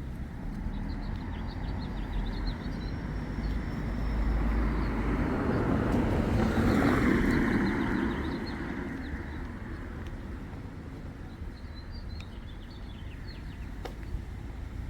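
A vehicle passing by, its road noise swelling over a few seconds and fading away, with small birds chirping on and off throughout.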